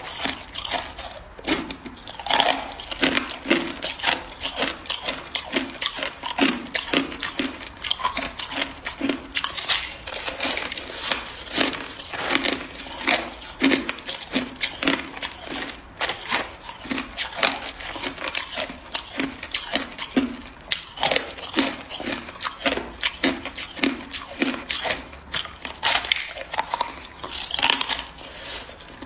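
Hard ice crunching and cracking as it is bitten and chewed, a rapid, continuous run of crisp crunches with a dull jaw thud under them.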